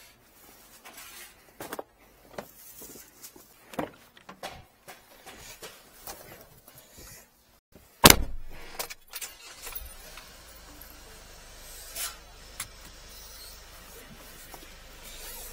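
Scattered clatter and knocks of equipment being handled, then a car door shutting hard about eight seconds in, the loudest sound. After that the car's engine runs steadily as it drives.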